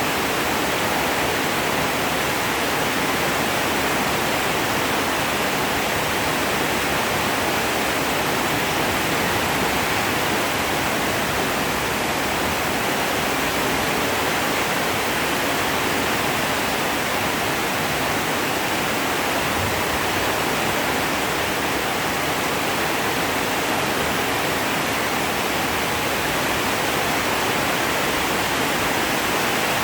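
Heavy rain falling in a steady, unbroken downpour, with no thunderclap.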